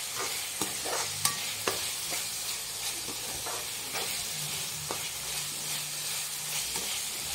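Minced meat (kheema) sizzling in oil in a wok while a metal spatula stirs and scrapes through it, with scattered light clicks of the spatula on the pan. Its water has cooked off and the oil is starting to show, the sign that the kheema has fried through.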